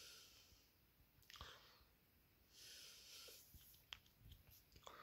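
Faint breathing close to the microphone: two soft breaths, at the start and about three seconds in, with small clicks and crinkles of a cardboard product box being handled in between.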